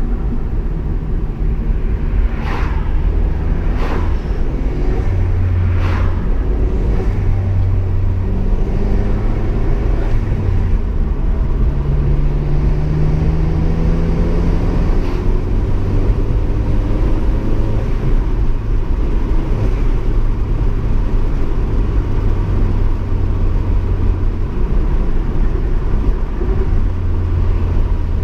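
GM 2.0-litre turbocharged LNF Ecotec four-cylinder engine running while driving, with a steady low rumble and its pitch rising under acceleration midway through. Three brief sharp sounds come in the first few seconds.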